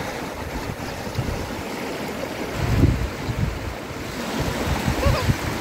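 Shallow sea waves washing up and back over the sand at the water's edge, with wind buffeting the microphone in low rumbling gusts, the strongest about three seconds in.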